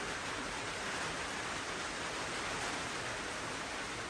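Heavy rain falling steadily, a dense, even hiss of a downpour.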